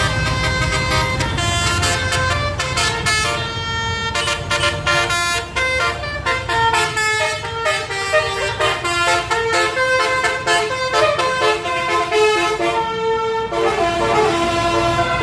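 Indonesian bus 'telolet' horn, a set of multi-tone air horns playing a quick tune of short notes, one after another, over the low running of the bus engine.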